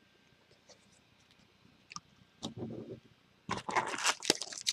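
Crinkling of a foil trading-card pack wrapper being handled, starting about three and a half seconds in after a faint click or two.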